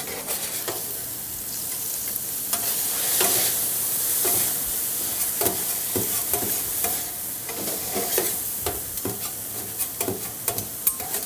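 Ground chicken sizzling as it browns on a hot flat-top griddle, while two metal spatulas chop and turn it with repeated scrapes and clacks against the griddle surface.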